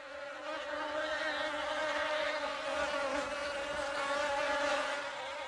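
Bee buzzing sound effect: one steady flight drone with a slightly wavering pitch, growing a little louder over the first second.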